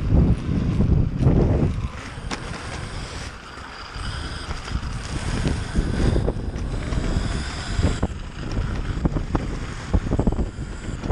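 Electric mountainboard riding on concrete: wind buffets the microphone over the rumble of its pneumatic tyres, with gusts near the start and end. The faint whine of its twin electric motors and helical gear drives comes through in the middle, and there are a few sharp clicks.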